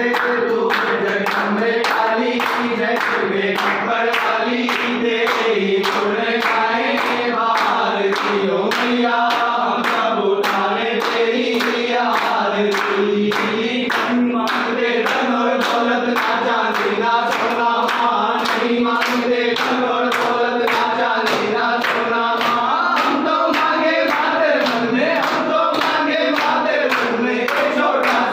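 A group of men singing a Hindu devotional song together, with steady hand-clapping keeping the beat.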